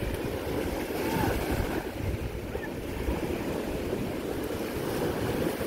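Wind buffeting the microphone, with small waves washing onto a sandy lake shore.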